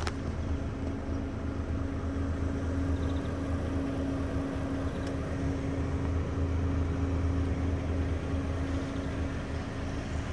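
The diesel engine of a 2016 DAF XF 460 Euro 6 tractor unit idling steadily, heard from inside the cab. A faint tick comes about five seconds in.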